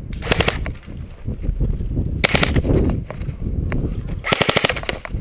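Airsoft electric rifle firing three short full-auto bursts, about two seconds apart, each a rapid string of clicks.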